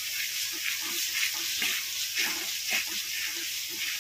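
Finely chopped onion sizzling in hot mustard oil in a wok as it starts to brown, with a spatula stirring and scraping through it in short, irregular strokes.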